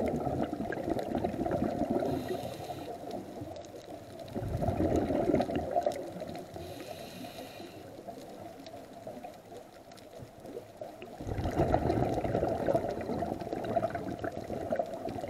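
Scuba diver breathing through a regulator underwater: long exhalations as rumbling bursts of bubbles, three times, each followed by a short hissing inhalation.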